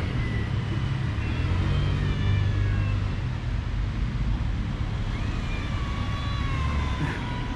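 Steady low rumble of city traffic, with faint thin high whining tones that drift slowly down in pitch, twice.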